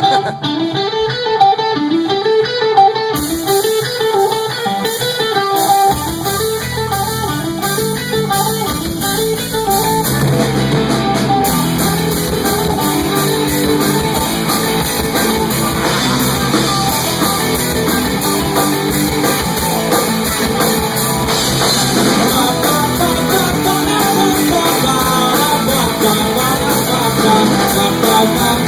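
Live rock band playing: a guitar riff repeats on its own, low bass notes come in about six seconds in, and the full band with drums fills out the sound from about ten seconds in.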